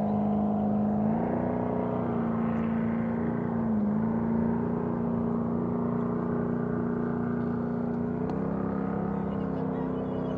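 A steady engine hum whose pitch steps up slightly about a second in, dips briefly midway, and steps up again near the end.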